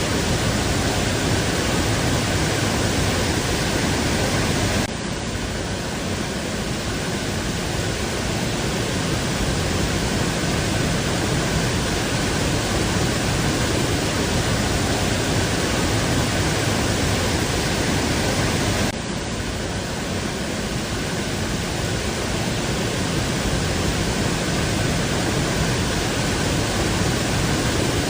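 Waterfall: a loud, steady rush of falling water, dipping suddenly in level about five seconds in and again at about nineteen seconds before building back up.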